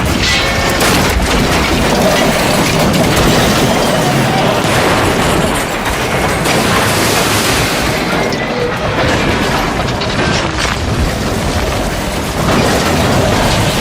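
Train-crash sound effects: a loud, continuous din of crashing and booming wreckage, with rail clatter mixed in.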